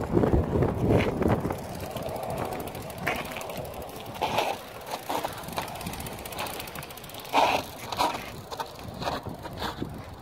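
Mountain bikes riding down a rocky trail: tyres rolling and crunching over stone and dirt, with short clattering rattles from the bikes over the rocks. The nearest bike is loudest in the first second or so, and scattered sharper clatters follow, the strongest about four and about seven and a half seconds in.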